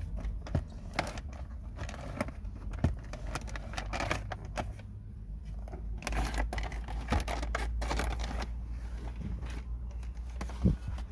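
Plastic dashboard trim and instrument panel being pried and handled: a run of irregular clicks and snaps, with a low steady hum underneath.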